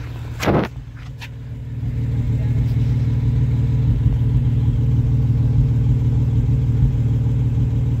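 Honda V6 engine idling at the exhaust tailpipe, running rough and uneven: a misfire, which the owner puts down to fouled spark plugs. It grows louder from about two seconds in, and a brief loud noise comes about half a second in.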